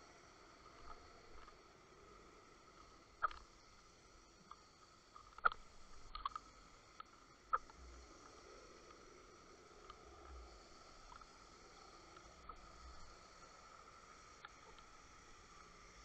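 Faint underwater ambience picked up by a submerged camera in its housing: a steady hiss with a thin faint whine, broken by several sharp clicks in the first half.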